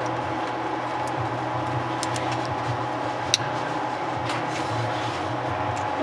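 A steady low hum with small clicks from a stainless steel watch bracelet and clasp being handled, and one sharper click about three seconds in.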